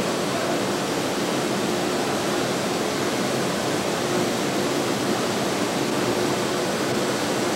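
Steady hiss with a faint low hum underneath and no distinct events.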